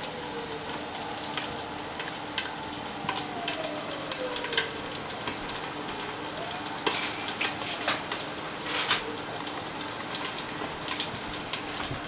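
Chicken thigh pieces sizzling in a frying pan covered with a glass lid: a steady frying hiss with scattered sharp pops and spits.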